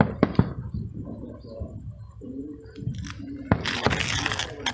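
A few sharp firework bangs in quick succession at the start, then low murmured voices and, near the end, a second-long burst of hissing noise.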